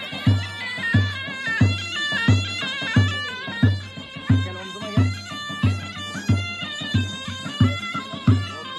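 Kurdish folk music: a shrill reed pipe plays a stepping melody over a deep drum beaten steadily, about three strokes every two seconds.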